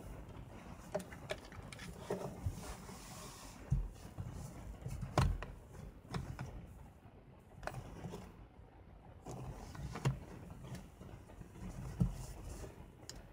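Irregular clicks and light knocks from a Canon EOS-1 film SLR body with its Power Drive Booster E1 grip being handled in gloved hands, with soft rustling between them.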